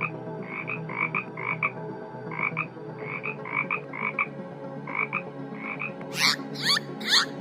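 An animal calling in short double-note calls, repeated about twice a second. About six seconds in, a different, louder series of high chirps sweeping upward, about three a second, takes over.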